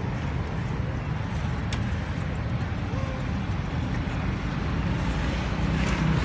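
Steady low outdoor rumble, with a few faint short high calls rising and falling in pitch.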